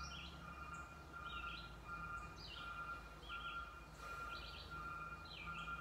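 Woodland birds chirping: short notes that fall in steps, repeating about once a second, over a faint steady high hum and low background rumble.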